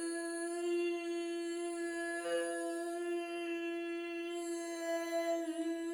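A woman holding a long, steady voiced 'L' sound, a hum with the tongue pressed behind the upper front teeth, as a jaw-and-voice exercise. It stays on one pitch, with only a slight wobble about five and a half seconds in.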